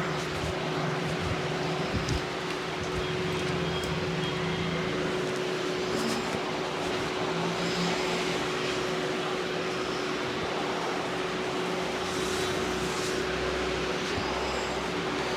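Steady street background noise, traffic-like, with a constant hum running under it.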